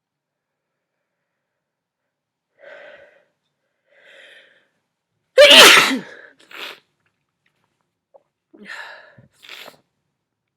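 A person sneezes once, loudly, about halfway through. Two soft catching breaths build up to it, and a few quieter sniffles follow.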